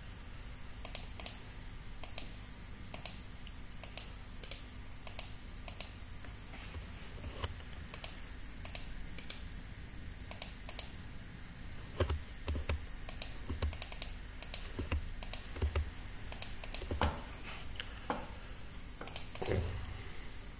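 Clicks of a computer mouse and keyboard, a sharp click roughly once a second, with a few duller knocks in the second half.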